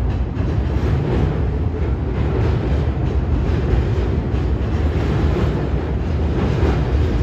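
Loaded freight train of flatcars rolling past on an elevated trestle: a steady, loud rumble with rattling wheel and car noise.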